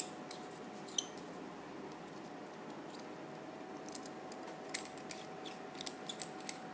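A few light metallic clicks and taps as the two halves of a stainless steel thumb-push pepper mill are twisted and handled apart, with a small cluster of clicks near the end, over a faint steady hum.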